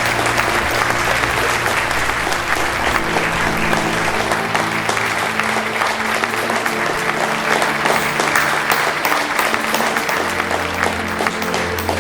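A crowd applauding over background music with low held notes.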